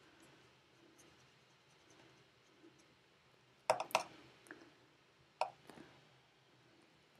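Watercolour brush knocking against the paint palette: a quick cluster of sharp clicks a little past halfway, then one more click about a second and a half later, over faint room hiss.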